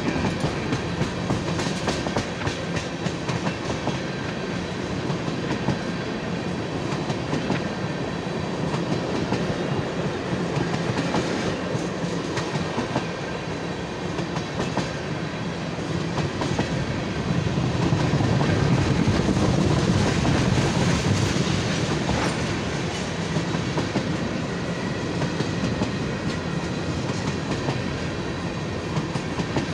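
Freight train of loaded tank cars rolling steadily past at close range: continuous steel-wheel rumble and rattle with a rapid clickety-clack of wheels over the rail joints. It swells a little in loudness a bit past the halfway point.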